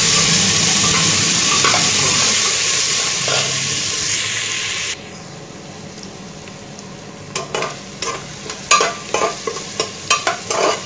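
Chopped onion frying in hot oil in a pressure-cooker pan, with a loud steady sizzle that drops away abruptly about five seconds in. From about seven seconds on, a steel spatula scrapes and knocks against the pan again and again as the onion is stirred.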